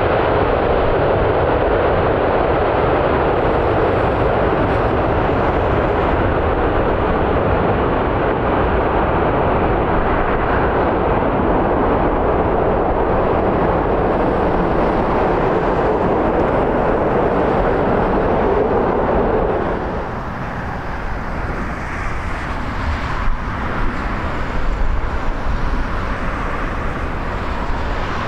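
Airbus A380 slowing on the runway after touchdown: a loud, steady rush of its jet engines. About two-thirds of the way through it cuts to the quieter, thinner jet noise of another A380 on final approach.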